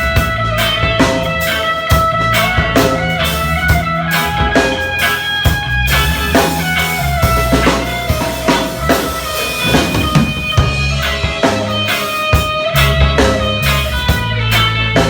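A band playing an instrumental, with guitar over held bass notes and a drum kit keeping a steady beat.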